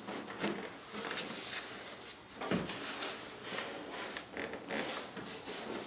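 Masking tape being handled and rubbed down onto the seam of a model jet's fuselage: irregular crinkling and rubbing with scattered sharp ticks, and a soft knock about two and a half seconds in.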